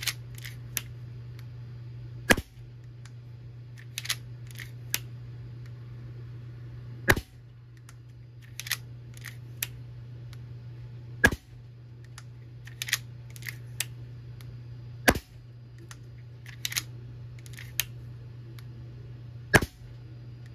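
Five shots from a homemade .22 Crosman PCP air rifle, each a sharp crack, about four seconds apart. Between shots come lighter metallic clicks as the side-lever breech is cycled and the next pellet loaded.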